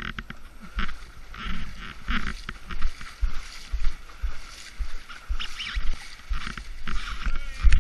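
Kayak moving through shallow floodwater: irregular splashing and sloshing, with wind thumping on the microphone.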